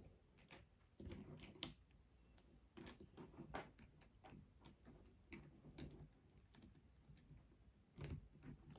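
Faint, scattered clicks and taps of plastic 4x4 Rubik's cube pieces being handled and pushed into place in the partly assembled cube.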